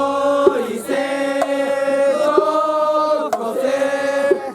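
A festival chant sung by voices in long, drawn-out notes. The pitch steps between phrases, with short breaks between them.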